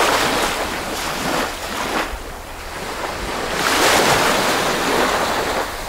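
Small sea waves breaking and washing up a sand beach, the surf swelling near the start and again about four seconds in, with some wind rumbling on the microphone.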